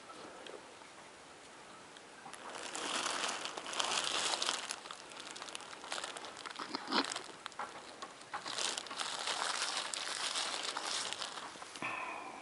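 Dry hay bedding rustling and crackling in two stretches of a few seconds each, with scattered sharp clicks, as it is disturbed around a newborn calf.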